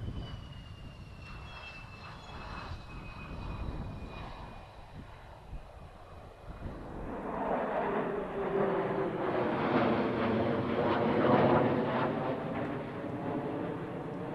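Fighter jet engines: first the whine of an F-16 on its take-off run, falling in pitch as it moves away, then from about seven seconds in the noise of a formation of jets flying over, growing louder with sweeping tones.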